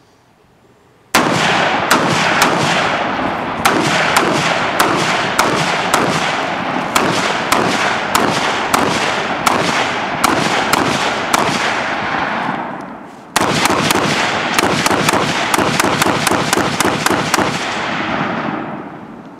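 Short-barrelled 5.56 AR pistol with a Sound of Madness muzzle brake firing rapid strings of shots. The first string runs at about two shots a second for some eleven seconds. After a second's pause comes a second, faster string, and each shot's long echo runs into the next.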